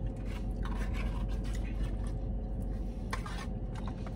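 A plastic fork scraping and clicking a few times against a foam takeout container, with a man chewing, over a steady low hum in a car cabin.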